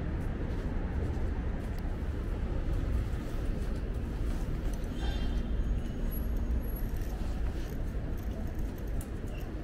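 Steady city street ambience dominated by a low rumble of passing road traffic.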